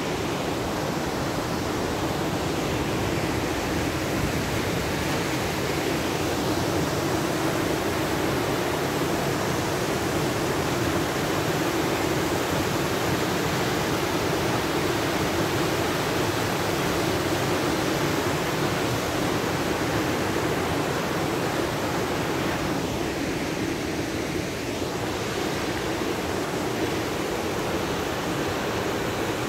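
Steady rush of a rocky mountain stream and small waterfall: an even, unbroken hiss of falling and running water.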